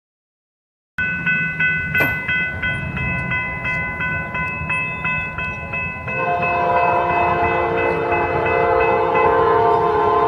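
Railroad crossing bell ringing steadily about three times a second, starting about a second in. About six seconds in, an approaching train's horn starts blowing a long held chord, louder than the bell, and stops near the end.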